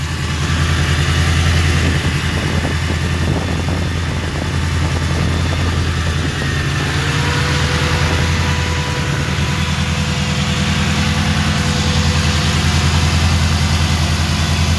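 Chevrolet Monza's V8 engine running at a steady idle.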